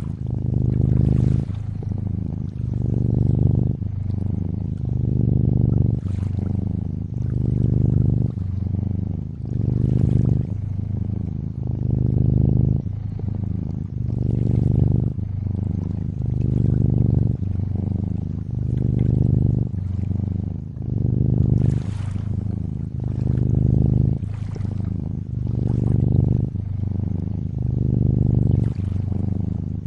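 Cat purring, swelling and easing in a steady rhythm about every two seconds with each breath, over soft lapping and trickling lake water.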